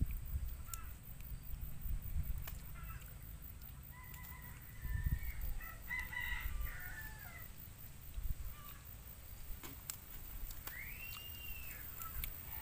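A rooster crowing, a long call starting about four seconds in, then a short call that rises and falls near the end, over a low rumble.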